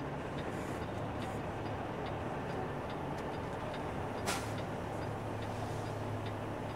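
Semi-truck's diesel engine running steadily at low speed, heard inside the cab, with a light regular ticking throughout and one brief sharp sound about four seconds in.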